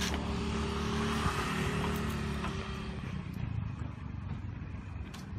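Motor vehicle running close by: a steady low hum for about the first three seconds, over outdoor traffic noise that eases a little after.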